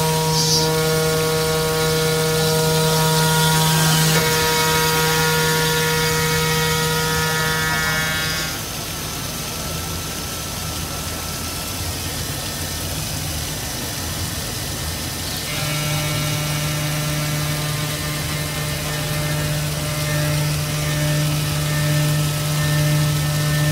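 CNC glass working center's spindle running with a steady hum and whine as its tool works a glass panel under a spray of coolant water. About eight seconds in the whine and hum drop away and the sound goes a little quieter, and the hum comes back about seven seconds later.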